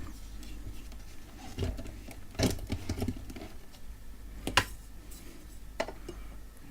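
Scattered knocks and clicks of a transformer and metal mounting bracket being worked back into a UPS case, the loudest about two and a half and four and a half seconds in.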